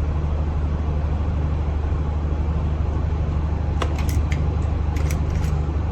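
A steady low hum, with a few light clicks about four to five and a half seconds in from small parts and tools being handled during soldering work.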